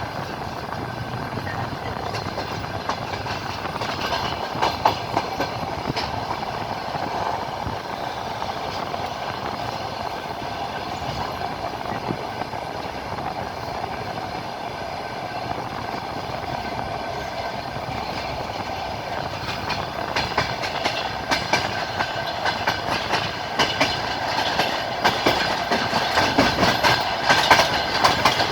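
Passenger train wheels clattering over rail joints, a steady rolling rumble with a clickety-clack, heard from inside the moving carriage. The clicks grow louder and more frequent in the last third.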